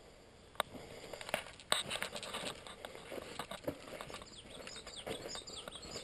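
Irregular clicks, scuffs and rustles of a handheld action camera being carried around, with footsteps on sandy ground; the sharpest knocks come about half a second and just under two seconds in. A few faint high bird chirps come in during the second half.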